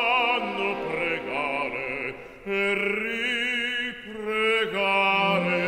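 Operatic male voice singing long held notes with wide vibrato. It breaks off briefly about two seconds in, then carries on.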